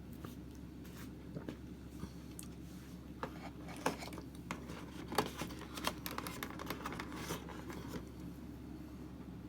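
Plastic board-game figures being taken out and handled: a run of light clicks, scrapes and rustles, busiest in the middle stretch.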